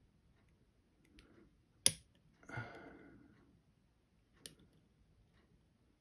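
Lock-picking tools working the levers of a five-lever Bulldog padlock: faint ticks, one sharp metallic click a little under two seconds in and a smaller one past four seconds. A short rustling noise follows just after the loud click.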